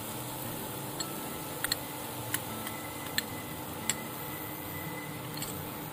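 A metal spoon clinking against a small glass bowl several times, in scattered single ticks, while powdered cashew is scraped out of it, over a steady background hiss.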